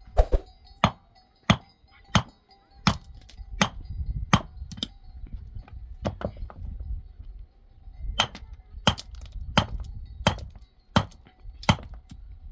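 A hand tool striking hard material over and over, about one and a half blows a second, each blow a sharp crack with a little metallic ring. There are about eight blows, a pause of a few seconds, then six more.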